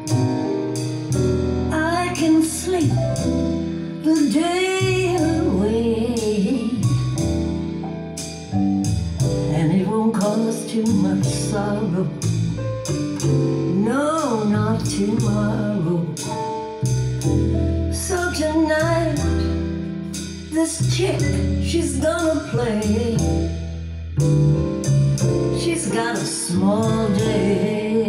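A recorded song with a singer, played through Aurum Cantus New Grand Supreme floor-standing hi-fi loudspeakers and heard from down the length of the room. The melody wavers with vibrato over steady accompaniment.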